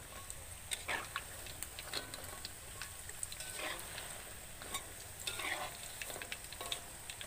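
Wonton-skin chips deep-frying in a wok of oil, a steady sizzle with small crackles, while a metal spatula stirs and turns them over once they float, scraping the wok now and then.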